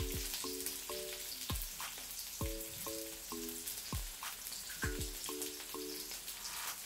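Sliced onions sizzling in hot oil in a wok, under background music of short repeating chords and a deep bass thump every second or so.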